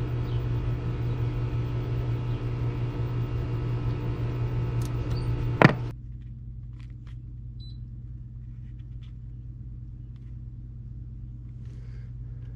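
A machine hums steadily until a loud click about six seconds in, when the hum drops away sharply. A quieter low hum follows, with faint ticks and a short high beep.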